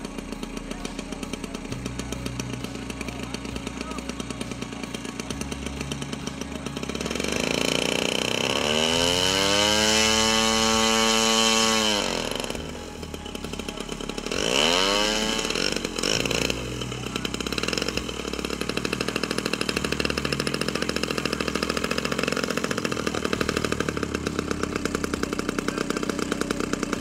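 Model-aircraft engine of a large RC P-40 Warhawk scale model running at idle with an even beat. About a third of the way in it is run up to high throttle, held for a few seconds and cut back suddenly. A moment later it is blipped up and down once more before settling back to idle.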